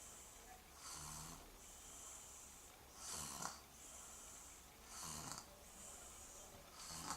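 Snoring in slow, even breaths, one snore about every two seconds, with a breathy hiss between snores.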